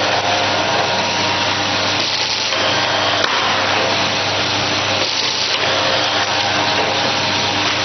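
Film packaging machine running: a steady mechanical rushing noise with a low hum, swelling slightly about every three seconds.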